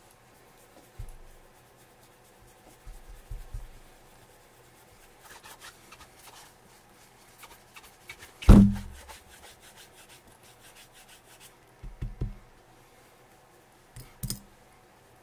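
Hands handling and rubbing a leather boot during conditioning and polishing, with light scratchy rubbing strokes. Scattered knocks run through it, and the loudest, a sharp thump, comes about halfway through.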